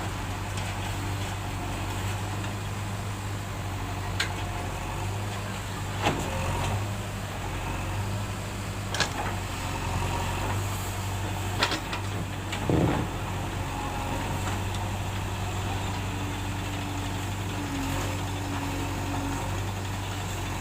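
A diesel engine of heavy earthmoving machinery running steadily at a low, even hum. Several sharp metallic clanks or knocks are spaced a few seconds apart, the last and longest near the middle.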